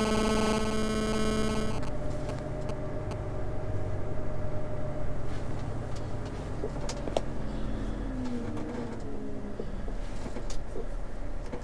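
Lorry's diesel engine running at low revs, heard from inside the cab as the truck reverses slowly. A steady electronic tone sounds for about the first two seconds and then cuts off, and a few light clicks follow.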